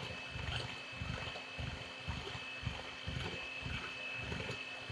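Electric hand mixer running, its beaters whisking eggs in a glass bowl: a steady motor whine over an uneven low rumble.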